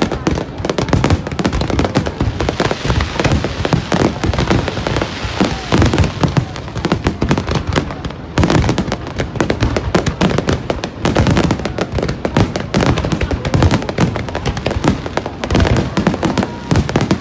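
Aerial fireworks going off in a dense, rapid barrage of bangs and crackles, with deeper booms mixed in, and a brief lull about eight seconds in.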